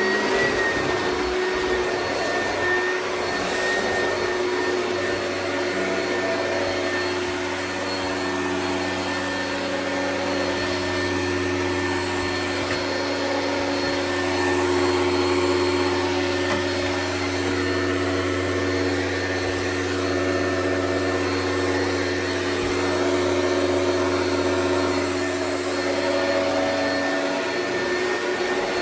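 Oreck vacuum cleaner running: a steady motor hum over rushing air, wavering slightly in loudness.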